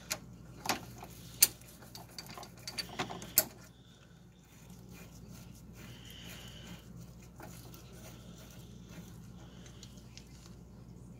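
Steel wrenches clicking and tapping against a brake line fitting as the line nut is worked off the front brake hose, with several sharp metallic clicks in the first few seconds and then only quiet handling.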